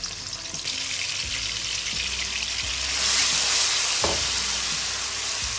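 Coarsely ground chili paste sizzling in hot oil in a wok as it is scraped in and stirred with a spatula. The sizzle swells about three seconds in, with a few light knocks and scrapes of the spatula against the pan.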